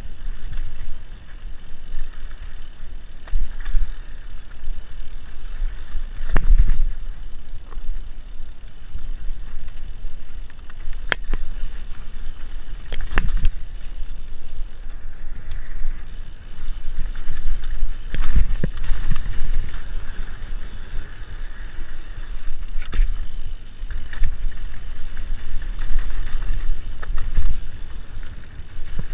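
Mountain bike riding fast down a dirt singletrack: tyres rolling over dry dirt and the bike rattling, with a low rumble of air rushing past. Sharp knocks from bumps and drops come several times.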